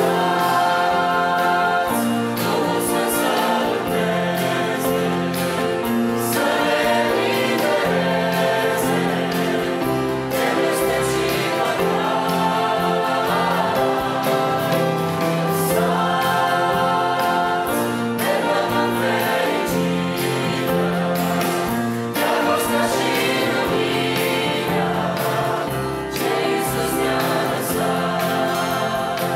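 Mixed youth choir singing a Christian hymn with instrumental accompaniment.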